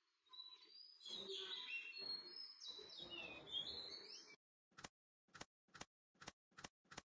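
A few seconds of high, squeaky chirping sounds, then six sharp shots from a pneumatic brad nailer, a little under half a second apart, as it drives brads through the table leg into the stretcher rail.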